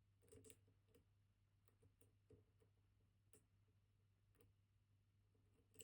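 Faint, scattered small clicks of a dimple lock pick working the spring-loaded pins of a MIWA JN high-security dimple lock held under tension, as the pins are tested and set one by one.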